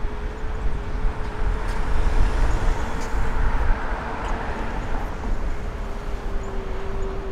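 Road traffic outdoors: a vehicle passes with a swell of tyre noise about two to four seconds in, over a steady low rumble and a single steady hum.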